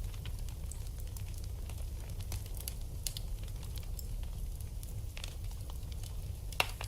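Wood fire burning in a fireplace: a steady low rumble with scattered crackles and pops, one sharper snap near the end.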